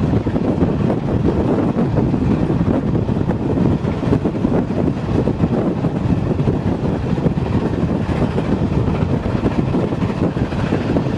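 LMS Princess Coronation Pacific 6233 Duchess of Sutherland, a four-cylinder steam locomotive, working hard up a steep bank, with the clatter of its train of carriages, heard from an open carriage window with heavy wind rush on the microphone. The noise is loud and steady throughout.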